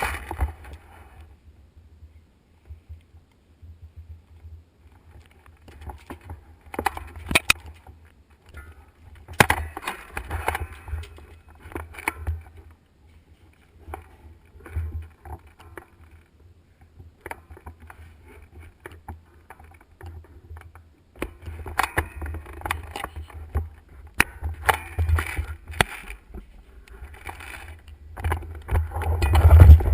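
Low, uneven rumbling of wind buffeting and handling noise on a gun-mounted action camera's microphone, with scattered rustles and a few sharp clicks, loudest near the end.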